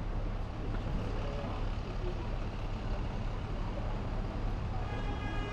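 City street traffic: a steady rumble of passing vehicles, with a short pitched tone sounding near the end.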